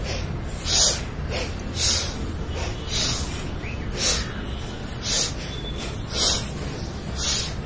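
A person breathing sharply through the nose, one short forceful breath about every second, over a steady low rumble.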